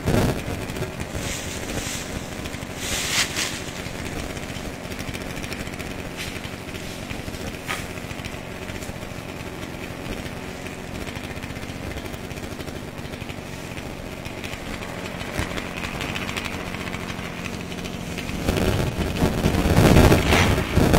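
Chainsaw idling steadily, with a few sharp knocks in the first few seconds. From about two seconds before the end it revs up and grows louder as cutting resumes at the base of a tree.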